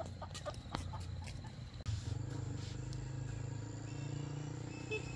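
Chickens clucking with scattered clicks and scratching. About two seconds in, the sound breaks off and gives way to a steady low hum with a few faint high peeps.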